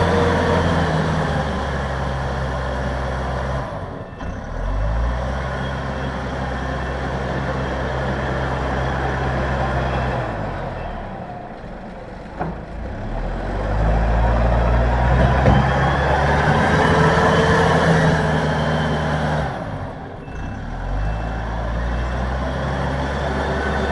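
Everun ER1500F compact wheel loader's engine running under load while it pushes heavy wet snow. Its revs drop and climb back again three times, about four, twelve and twenty seconds in.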